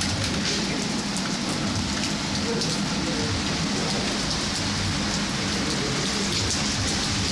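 Steady rain falling and splashing on wet street pavement, a continuous patter with many fine drop ticks.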